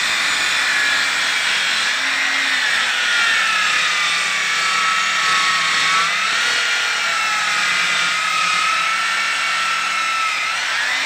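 Black & Decker electric circular saw running through wood, a steady loud whine with hiss. The motor's pitch sags as the blade works through the cut and rises again near the end as the load comes off.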